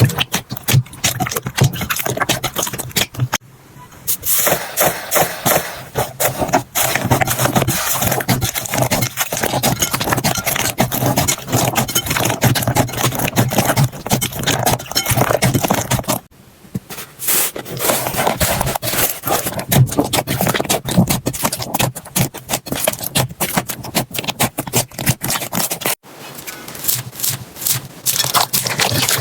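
Slime being squeezed, poked and pressed by hand, a dense run of wet crackling and popping clicks. It breaks off briefly three times.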